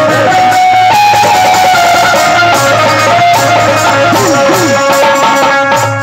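Live instrumental music from the band of a Bhojpuri dugola folk programme: a melody of held notes with plucked-string sounds over a steady low drone, and two quick up-and-down pitch swoops a little past the middle.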